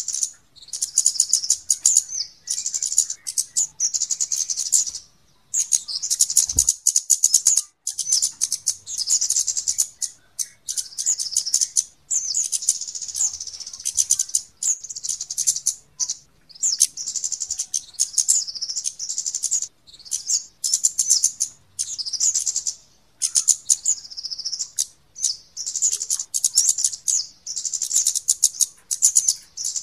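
Flowerpeckers (kemade/cabean) calling: high-pitched ticking chirps run together into rapid trills, in bursts of one to three seconds with short pauses between. It is a bird-lure (pikat) recording of the kind played to draw these birds in.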